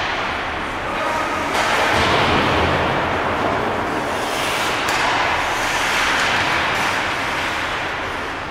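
Ice hockey play: skate blades scraping and carving on the ice in a steady hiss, with a sharp click about five seconds in.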